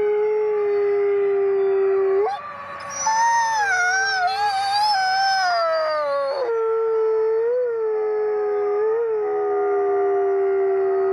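Canadian/Rocky Mountain gray wolf howling: a long, low, steady howl breaks off about two seconds in. Several higher, wavering howls then overlap for a few seconds, a pack chorus, and a second long, low howl follows with slight wobbles in pitch.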